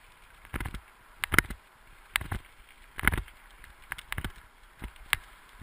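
A dog-drawn wheeled rig jolting over a rough dirt track: irregular sharp knocks and rattles, about one or two a second.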